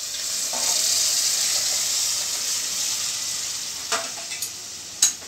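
Cooked toor dal poured into hot oil and fried tomato masala in a pressure cooker, setting off a loud sizzle that swells over the first couple of seconds and then dies down. A few short clinks of the steel ladle against the pot near the end.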